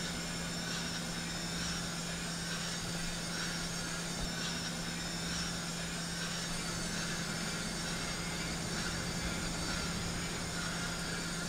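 Steady ambient hiss with a constant low hum underneath, holding an even level throughout.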